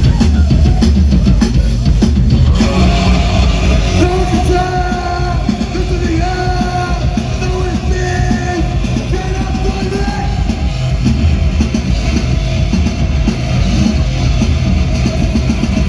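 Live band playing loudly, with drums, bass and electric guitar in a heavy rock style.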